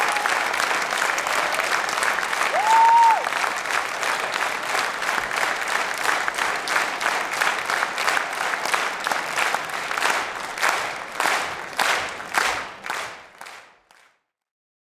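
Audience applause that settles into rhythmic clapping in unison, about two claps a second, then fades out. A short rising-and-falling tone cuts through about three seconds in.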